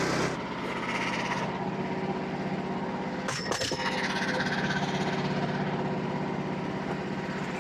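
Frontier OS27 portable bandsaw mill's engine running steadily while the blade takes a light trim cut through a red oak board. There is a brief clatter about three and a half seconds in.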